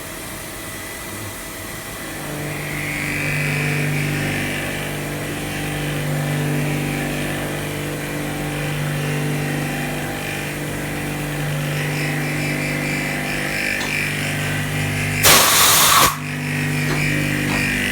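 CNC milling machine running as its spindle and thread mill cut an M30 thread: a steady hum with a higher whine comes in about two seconds in. About fifteen seconds in, a loud rush of noise lasts under a second.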